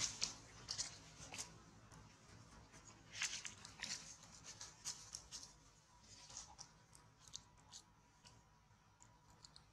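Faint, irregular crunching and crackling as a baby macaque gnaws at a cob of dried red corn, the crunches thinning out toward the end.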